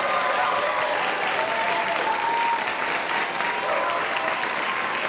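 Audience applauding steadily after a song ends.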